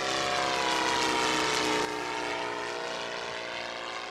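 A propeller-driven aircraft's engine running, its pitch falling slowly. Its level drops a little about two seconds in.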